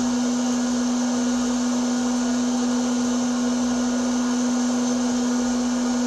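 Electric popcorn maker running, its motor whirring steadily with a constant hum.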